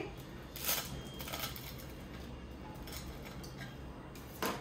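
A knife cutting a freshly fried chicken roll on a plate: a few light clicks and clinks of the knife against the plate, about a second in and again, louder, near the end.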